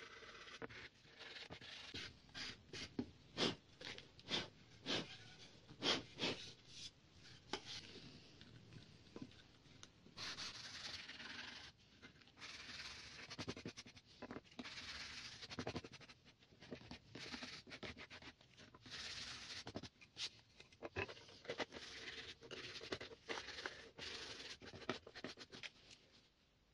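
Wood being hand-sanded with coarse P80 sandpaper: rasping back-and-forth strokes. The strokes come quick and short for the first several seconds, then turn into longer rubbing passes.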